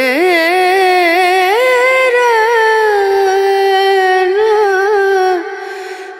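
Devotional song: a single high voice sings one long, ornamented phrase with wavering held notes, fading out near the end.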